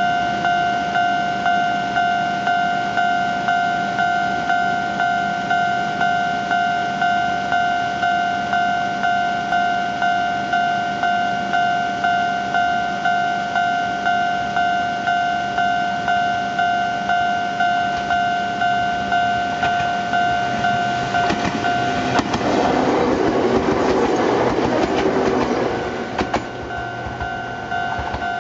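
Japanese level-crossing alarm ringing its repeated electronic kan-kan tone, about one and a half strokes a second. After about 21 seconds an Ohmi Railway 800 series electric train passes close by for about four seconds, its rumble and wheel clatter drowning the alarm, and the alarm then rings on.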